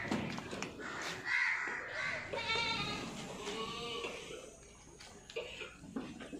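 Goat bleating: two wavering calls near the middle, the first the stronger.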